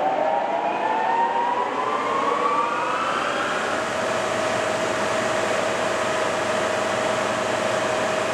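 1972 Monarch 25 x 48 toolroom lathe's geared headstock spinning at its top speed of 1500 RPM. A gear whine rises in pitch for the first three seconds or so, then settles into one steady tone.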